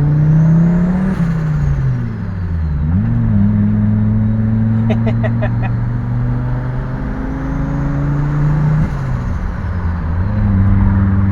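Fiat Marea Turbo's turbocharged five-cylinder engine pulling hard twice, with the turbo whine climbing to a high whistle and falling away each time the throttle is lifted. Heard reflecting off a wall alongside the car.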